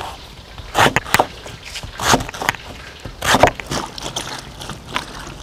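A knife cutting banana blossom on a wooden chopping board, then hands swishing and squeezing the slices in a bowl of water: a few separate splashing, scraping noises.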